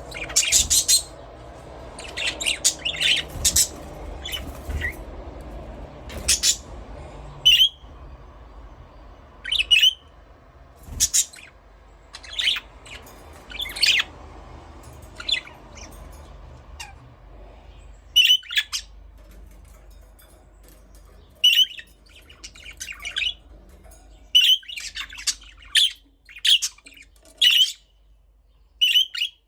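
Budgerigars chirping and squawking: short, sharp, high calls in irregular runs, sometimes several close together.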